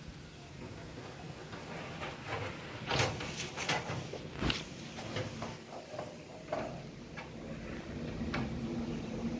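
A run of sharp clicks and knocks of hard objects being handled, bunched together about three to five seconds in, with a few more later, over a low steady hum.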